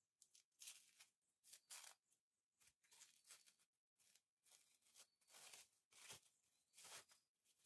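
Faint kitchen-work sounds: a series of short scraping or rubbing strokes, roughly one a second and irregular in spacing.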